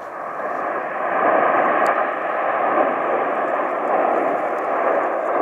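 Jet engines of the Red Arrows' nine BAE Hawk T1 trainers flying past in close formation: a steady jet roar that swells about a second in and then holds.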